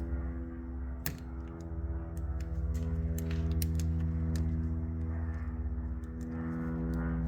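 Small scattered clicks and taps of a screwdriver and wire being worked into a thermostat's screw terminals, one sharper click about a second in, over a steady low hum.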